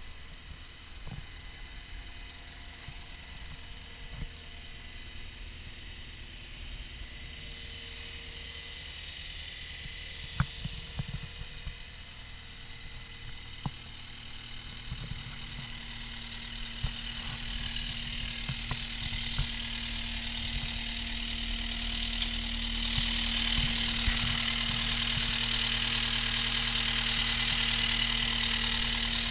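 Caterpillar 242D skid steer loader's diesel engine idling steadily, growing louder and brighter about two-thirds of the way through, with a few scattered clicks and knocks.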